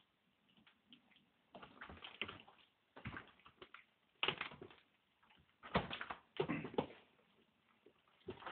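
Sounds of a staged struggle between two actors: irregular short bursts of scuffling and straining, the loudest about four seconds in and again around six seconds in.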